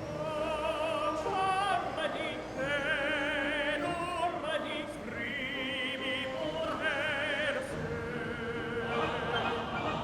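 Operatic singing with strong vibrato on long held notes, over orchestral accompaniment: background music.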